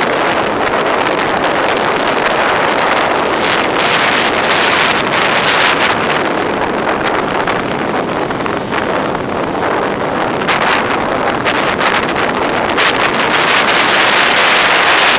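Wind rushing over the microphone of a camera riding on a moving motorcycle: a loud, steady rush that swells about a third of the way in and again near the end.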